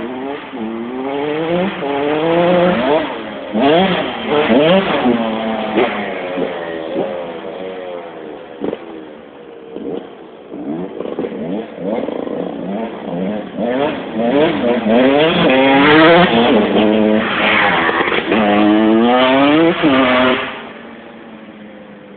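Two-stroke 125cc motocross bike engine revving hard and shifting through the gears: again and again the pitch climbs, then drops back at each shift. It gets louder in the second half, then falls off sharply a couple of seconds before the end.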